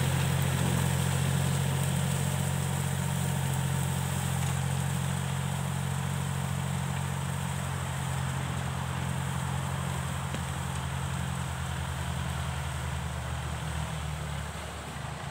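Small L1.20 tractor's engine running steadily as it pulls a rear-mounted rotary slasher mowing tall grass, growing fainter as it moves away.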